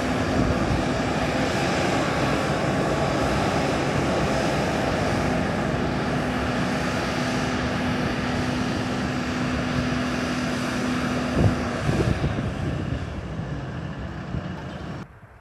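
Boeing 737-800's CFM56-7B jet engines running at idle as the airliner taxis away from the stand: a loud, steady rush with a constant hum. Two sharp knocks come about eleven and twelve seconds in, and the sound then fades before cutting off near the end.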